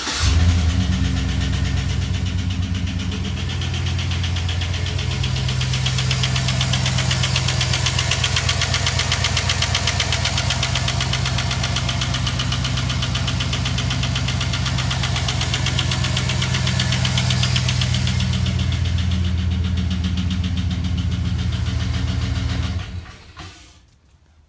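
Chevrolet Silverado's 5.3-litre LS V8 (L33) just started and idling with a fast ticking, then shut off about 23 seconds in. The sound is a collapsed lifter that has lost hydraulic pressure, so cylinder 6's intake valve isn't opening all the way.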